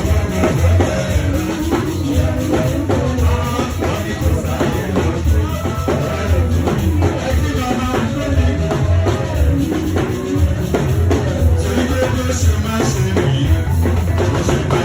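Choir music: voices singing over a drum kit with a steady bass beat.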